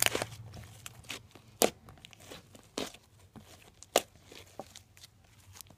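Clear glitter slime being squeezed and kneaded by hand, giving a string of sharp pops and clicks, the loudest at the very start and again about one and a half and four seconds in.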